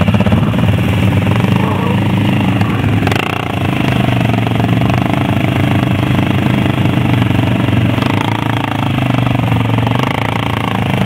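ATV engine running hard with a steady drone as the quad works to climb out of deep mud, briefly easing off about three seconds in.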